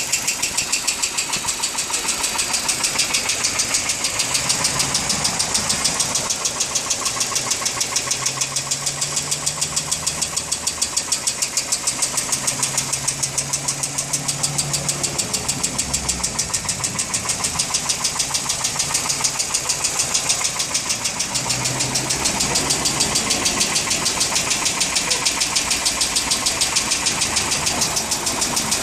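Hyundai Accent Prime engine running with a rapid, even ticking of about five a second: the strange engine noise the owner is showing.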